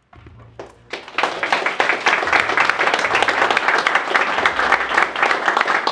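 A small crowd applauding, starting about a second in, many hands clapping at once.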